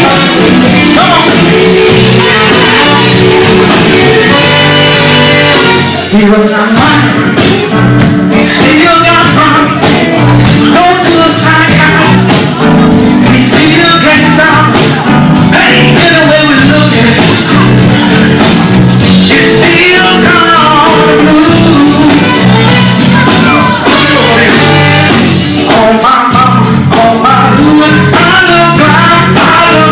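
Live blues band with electric guitar, drums and keyboards, and a man singing over it into a microphone, played and recorded loud.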